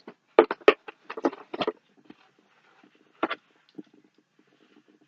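Objects being handled during an unboxing: a quick run of sharp clicks and knocks in the first two seconds, a faint rustle in the middle, and two more knocks past halfway.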